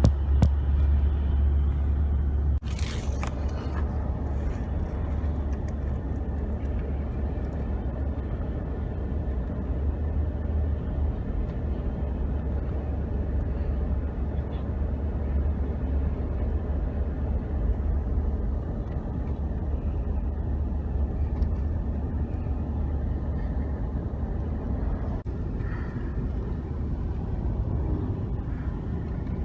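Steady low vehicle rumble running on with little change, with a brief hiss about three seconds in.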